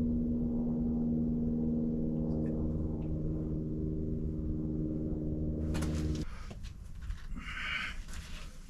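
A steady low drone of many held tones, which stops abruptly about six seconds in. Faint rustling and light clicks follow.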